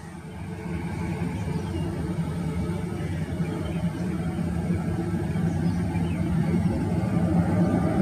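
Airbus A320-214's CFM56 turbofan engines at takeoff thrust: a low jet rumble that grows steadily louder as the airliner rolls down the runway.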